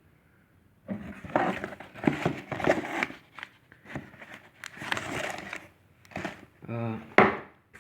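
A cardboard box being cut open and handled, with packaging crinkling and scraping in an irregular run of rustles and clicks.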